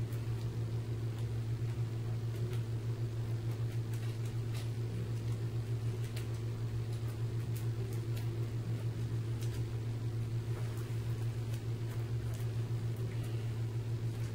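Steady low machine hum with a slight pulse, with a few faint clicks over it.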